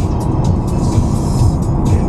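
Background music with a steady quick beat, mixed with the low rumble of a car driving at highway speed.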